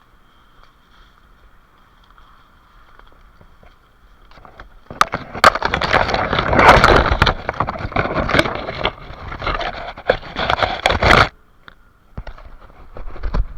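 Loud scraping and crackling, like dry brush and twigs rubbing and snapping, with sharp clicks. It starts about five seconds in, lasts about six seconds and cuts off suddenly, over a faint steady high hum.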